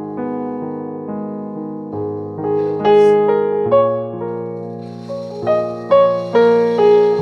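Background piano music: a slow melody over sustained chords.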